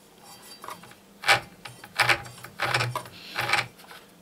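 Clicks and rattles of hands handling the opened plastic housing of a Festool Kapex mitre saw: a couple of sharp clacks, then a quicker cluster of knocks and scrapes.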